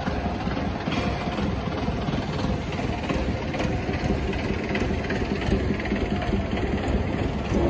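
Steady low rumble with a faint hum underneath: background noise of a large factory workshop hall.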